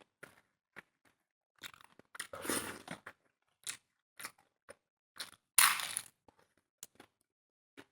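A person chewing and crunching food close to the microphone in a series of short bites, with two louder crunching spells, about two and a half seconds in and again around six seconds.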